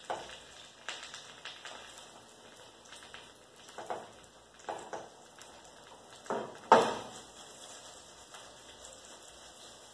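Omelette frying in a pan with a steady soft sizzle, while a utensil scrapes and knocks against the frying pan in about eight short strokes at irregular times. The loudest knock comes just before seven seconds in.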